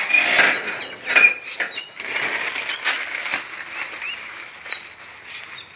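Dry leaves rustling and crunching with scattered knocks and scuffs from a phone being handled and swung, plus a few short, high, rising chirps.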